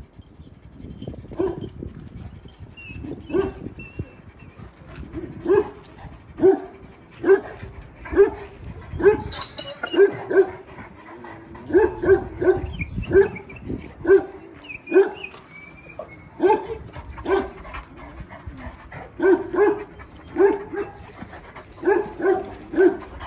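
Several large Kangal-type shepherd dogs barking repeatedly from their kennel runs, with short barks coming in quick runs of two to four.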